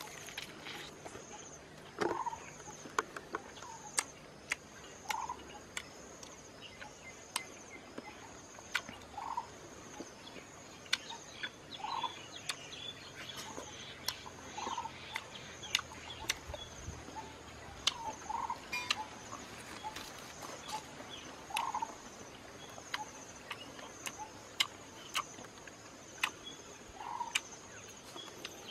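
A bird repeating a short call every two to three seconds over a steady high insect drone, with many sharp clicks and smacks from someone eating honeycomb close by.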